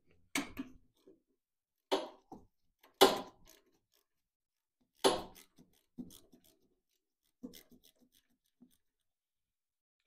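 A wrench clicking and knocking against the float-bowl nut of a Tecumseh engine's carburetor as the bowl is loosened to drain the fuel. About eight short, separate clicks and knocks with quiet gaps between, the loudest about three and five seconds in.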